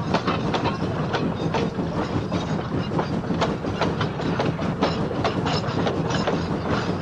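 Train running along the track: a steady rumble with wheels clicking over the rail joints.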